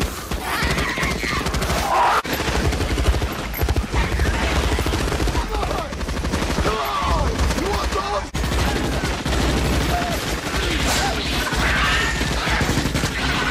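Sustained rapid automatic gunfire from the Morita assault rifles in a film battle scene, with cries rising over the shots and a steady low rumble beneath.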